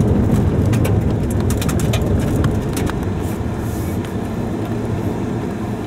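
Car driving on a dirt road, heard from inside: a steady low rumble of engine and tyres, with scattered clicks and rattles in the first half.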